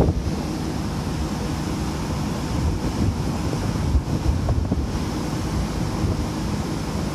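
Wind buffeting the microphone out on open sea: a steady, gusty rumbling rush, heaviest in the deep end, over the wash of the sea.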